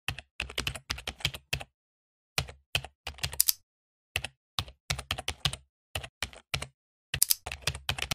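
Computer keyboard typing sound effect: runs of quick keystroke clicks, about four bursts broken by short silent pauses.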